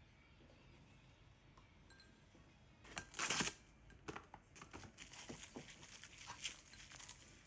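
Kitchen food-preparation handling noises: a brief rustling or tearing about three seconds in, followed by scattered light clicks and knocks of utensils and containers.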